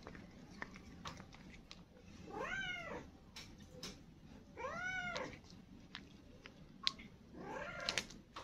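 Domestic cat meowing: two clear meows about two seconds apart, each rising then falling in pitch, and a fainter call near the end. Light clicks and rustles come from a cat eating off a plastic food wrapper.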